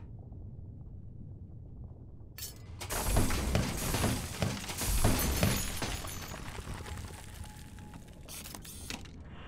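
Rock breaking apart in a loud crash with heavy thuds and tumbling debris, starting about three seconds in and fading over the next few seconds, over a low rumble.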